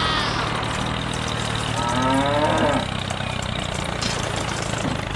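A cow moos once about two seconds in, a falling call under a second long, over a steady low motor hum from the toy tractor's rock drill.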